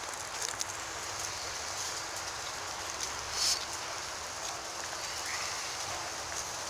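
Steady rain falling, a constant hiss with scattered small drop clicks, and a short louder hiss about three and a half seconds in.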